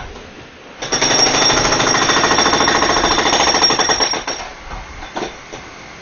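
Jackhammer hammering close by in a loud, rapid stream of blows. It starts about a second in, runs for about three and a half seconds, then stops, leaving a few fainter knocks.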